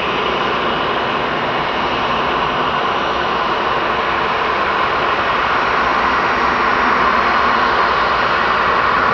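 Boeing 737-800's CFM56-7B turbofan engines running at taxi power as the jet turns onto the runway: a steady jet noise with a whine in it, growing a little louder toward the end.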